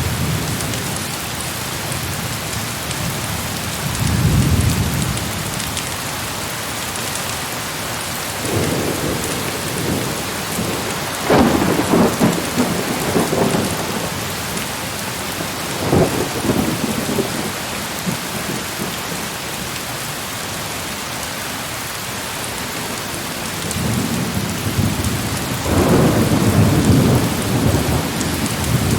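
Steady heavy rain with several rolls of thunder rumbling over it; a sharper, louder clap comes about twelve seconds in and a long rumble near the end.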